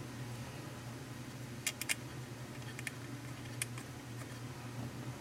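A few faint clicks of small metal hex nuts and screws being handled and threaded on by hand, over a steady low hum.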